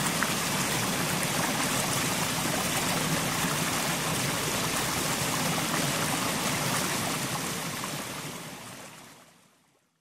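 Mountain stream: water rushing and trickling over rocks in a steady wash, fading out over the last couple of seconds.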